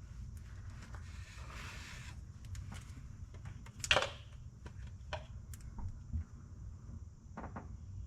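A hand-operated fluid pump being worked to push gear oil into a car's rear differential, with scattered light clicks and squelches, a short hiss about a second in, and one louder sharp squeak or knock about four seconds in.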